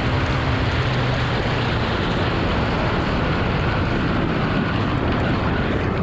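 Ducati Monster 1200R's V-twin engine running at about 230 km/h, mostly buried under a steady rush of wind over the onboard microphone. Near the end the bike slows for a corner.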